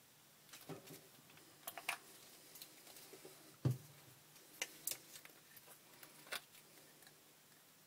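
Scattered light clicks and taps from plastic epoxy bottles being handled, capped and set down on a workbench, with one louder knock about halfway through, over a faint steady hum.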